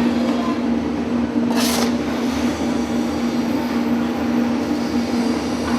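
Line-shaft-driven machine shop machinery running with a steady hum, and a short hiss about a second and a half in.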